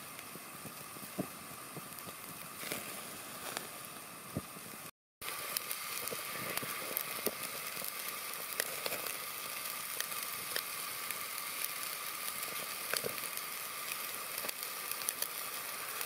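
Gas camp stove burner running steadily under a kettle grill, with occasional pops. After a cut about five seconds in, a bone-in rib steak sizzles and crackles on the grill grate.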